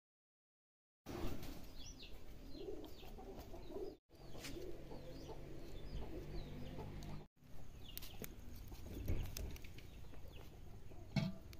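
After about a second of silence, chickens clucking, with short high chirps over a steady yard background; the sound cuts out briefly twice.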